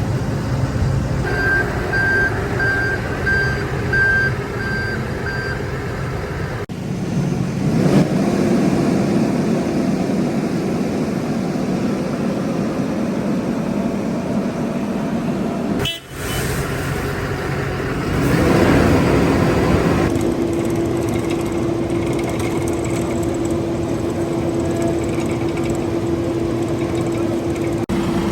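Heavy road-paving machinery running, its diesel engines giving a steady drone. A reversing alarm beeps about twice a second for a few seconds near the start. Twice an engine revs up and then holds a steady higher note.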